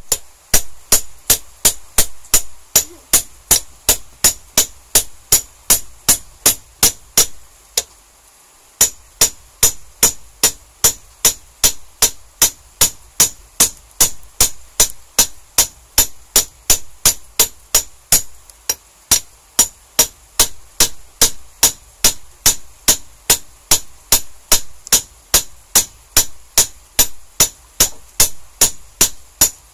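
Hammer blows flattening the end of a steel welding rod on a steel block, a steady run of about two to three strikes a second, each with a sharp high metallic ring. The blows stop briefly about eight seconds in, then go on.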